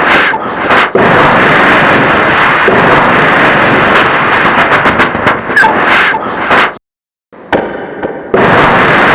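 A man imitating battle with his mouth: a few quick gunshot-like cracks, then a long continuous blast of mouth-made explosion and gunfire noise. It cuts off suddenly about seven seconds in, then starts again loudly near the end.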